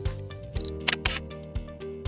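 Background music with a steady beat about twice a second. About a second in, two sharp clicks close together sound over it, like a camera-shutter sound effect.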